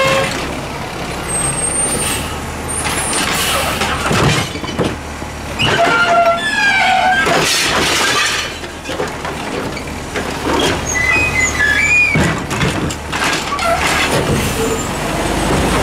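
CNG Peterbilt 320 garbage truck idling while its Heil DuraPack 7000 automated side-loader arm grabs a wheeled trash cart, lifts and dumps it into the hopper, and sets it back down. Several clunks and bangs, short squeals, and bursts of air hiss over the engine.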